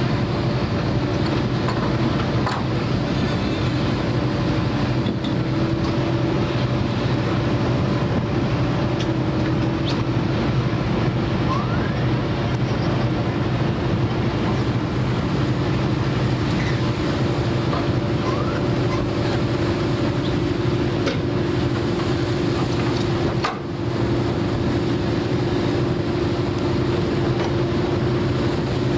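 A boat's engine running steadily, a constant drone with an even rush of noise around it.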